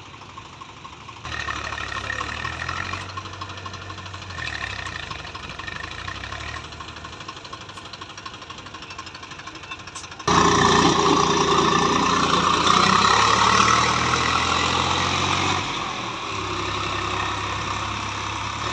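Swaraj tractor's diesel engine running under load, pulling a loaded trolley stuck in mud. It rises about a second in, then from about ten seconds in becomes much louder and harsher.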